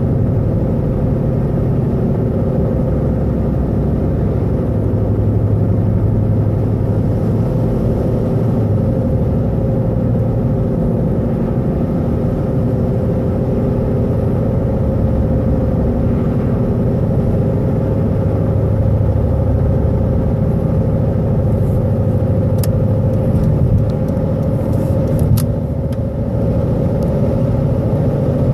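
Car engine running steadily with a loud, dense drone, the noise the owner wants explained along with bouncing rpm. Near the end come a few sharp clicks.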